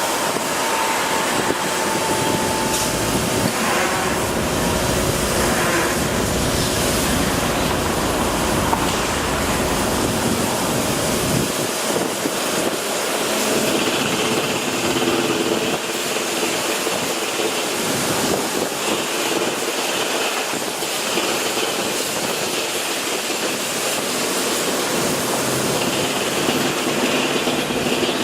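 Steady, loud mechanical noise of vehicles or machinery, with faint hums that shift in pitch now and then.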